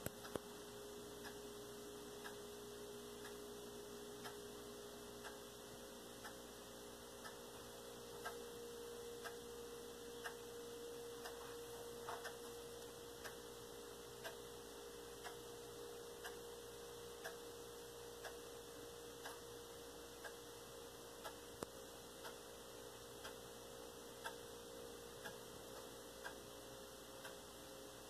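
Faint regular ticking, about once a second, over a steady low hum.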